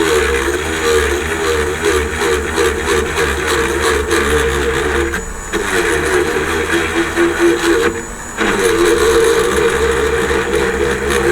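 Small electric drill running at speed as it bores out and enlarges a hole in a plastic model part, its pitch wavering as the load changes. The sound drops away briefly twice, once about five seconds in and again about eight seconds in.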